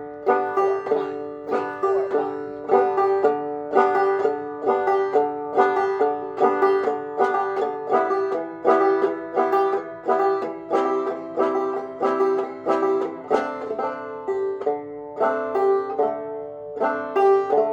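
Banjo played clawhammer style at a slow practice tempo: an even rhythm of plucked notes and brushed strums over a steady ringing drone note.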